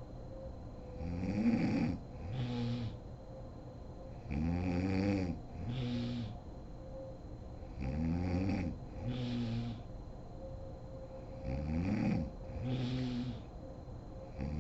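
A sleeping woman snoring loudly in a slow, regular rhythm, one breath about every three and a half seconds. Each breath gives a longer, rattling snore whose pitch rises and falls, then a shorter, steadier one.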